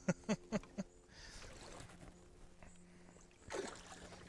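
Water splashing and swishing at the side of the boat as a released muskie is let go: a few short splashes in the first second, then a louder swish of water near the end, over a faint steady hum.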